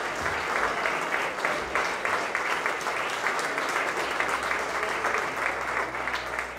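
Audience applauding, a dense steady clatter of many hands that begins to ease off near the end.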